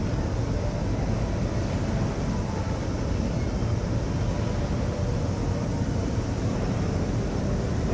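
Steady low rumble of a ship's engines running under way, even and unbroken.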